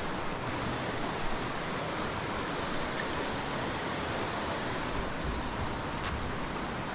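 Steady rush of a mountain stream's flowing water, with a few faint light ticks in the second half.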